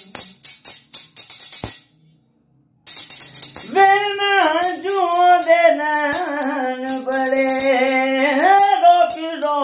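A man singing unaccompanied over a quick rhythmic rattling beat. The beat stops dead for under a second about two seconds in, then comes back, and from about four seconds in he sings long, held, wavering notes without words.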